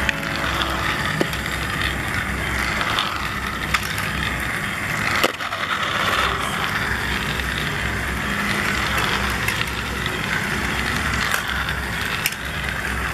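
Battery-powered toy electric train running on plastic track: a steady whirring and rattling from its small motor and plastic gears, with a few sharp clicks.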